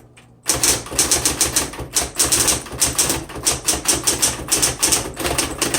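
Smith Corona Electra 120 electric typewriter being typed on fast: a quick, unbroken run of sharp, motor-driven keystrokes that starts about half a second in.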